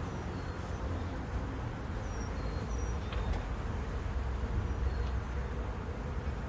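Swarms of honeybees buzzing steadily around an opened, heavily populated hive during inspection.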